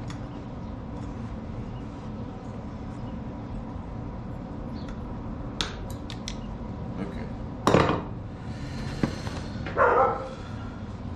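Metal and hand-tool clinks in a workshop over a steady hum: a few sharp clicks, then one loud clank about two-thirds of the way through, followed by a short hiss.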